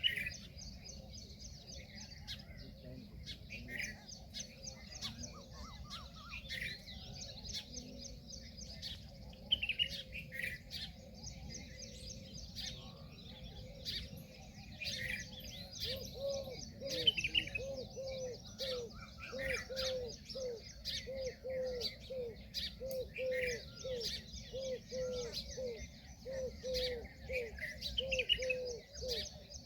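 Birds calling: a busy mix of many short, high chirps. About halfway through, a steady run of short, lower calls joins in, repeating about twice a second.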